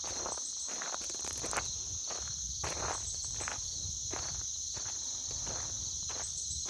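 Footsteps walking along a country road at about two steps a second, over a steady high-pitched chorus of insects.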